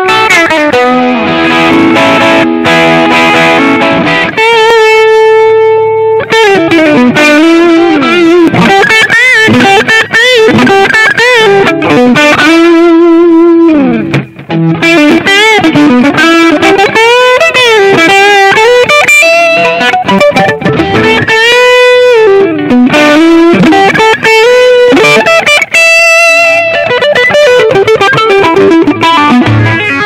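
Gibson SG Special electric guitar through a Yamaha THR5 v.2 mini amp, overdriven on the Crunch amp model and then on the Lead model partway through. It plays single-note lead lines with string bends and wide vibrato.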